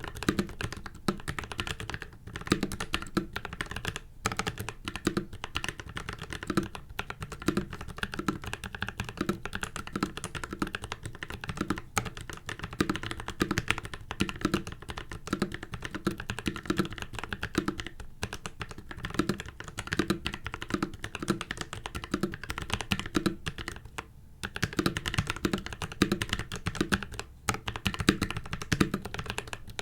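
Steady, fast typing on a mechanical keyboard with PACO switches lubed with Krytox 205g0 and PBT cherry-profile keycaps, with the board sitting directly on the desk without a desk mat. The typing stops briefly a few times, about 2, 4 and 24 seconds in.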